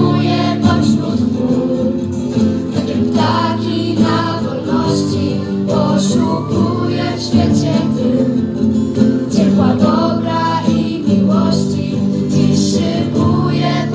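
Young female singers singing a song together, accompanied by acoustic guitar.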